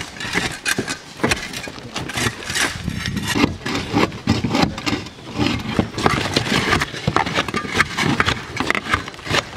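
Shovels and a hammer tearing old asphalt shingles off a roof: a busy, irregular run of scrapes, knocks and the clatter of loose shingle pieces on the roof deck.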